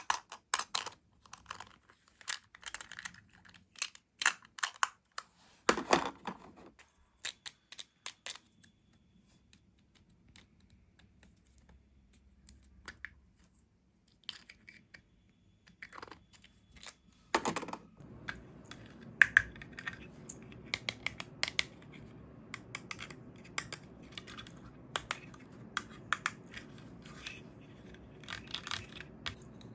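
Small plastic toy pieces and packaging being handled: irregular clicks, taps and rustles, with a quieter stretch in the middle and a faint steady hiss under the tapping in the second half.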